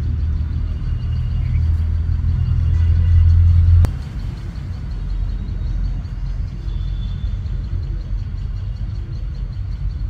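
Loud low rumble that cuts off abruptly with a sharp click about four seconds in, leaving a weaker low rumble.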